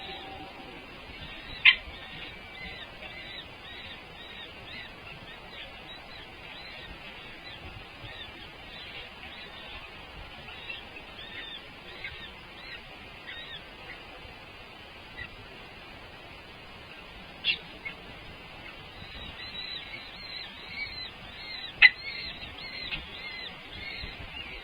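Birds chirping: many short, high chirps repeating over and over. Three sharp clicks cut through, about two seconds in, about seventeen seconds in and near twenty-two seconds in, the first and last the loudest.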